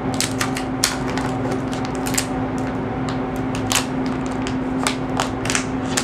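Thin clear plastic wrap crinkling and crackling in irregular sharp clicks as it is peeled off a smartphone, over a steady low hum.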